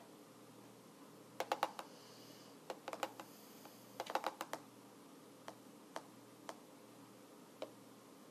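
Computer keyboard keys typed and tapped: three short runs of quick clicks, then single taps spaced out in the second half.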